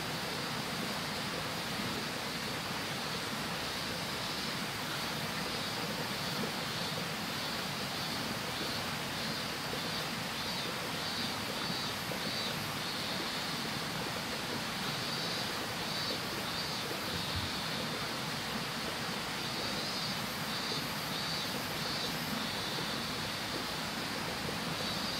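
Steady outdoor hiss, with insects chirping in short repeated high trills that come more often in the second half.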